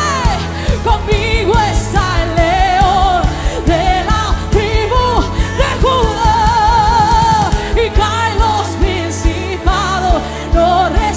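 A live worship song: a woman singing into a microphone, her held notes wavering with vibrato, over band accompaniment with a steady beat.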